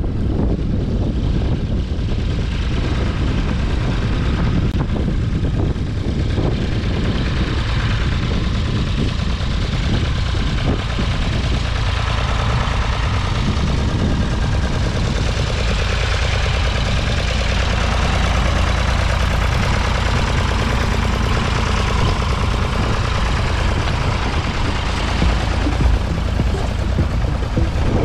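Vintage Ford tractor's diesel engine running steadily under load while pulling a plough, coming closer and growing louder as it passes near.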